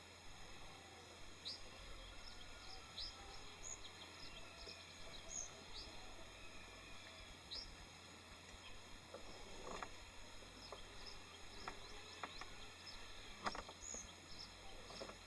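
Faint outdoor ambience with scattered short, high bird chirps and a couple of soft knocks; no engine running.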